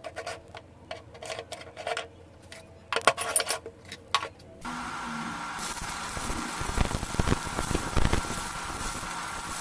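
Metal parts clinking and tapping as they are handled, then about halfway in a steady, hissing workshop machine sound starts and runs on.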